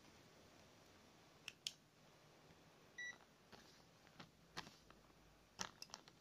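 A single short electronic beep from a digital multimeter about three seconds in, as the meter is switched on into its resistance/continuity range. Around it, several light clicks and taps from handling the wire and tools on the table.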